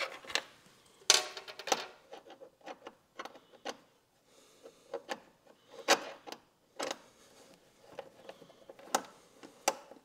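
Irregular light clicks, taps and scrapes of a 5 mm Allen key working the screws out of a Honda Gold Wing's plastic front cover, with a short burst of scraping about a second in.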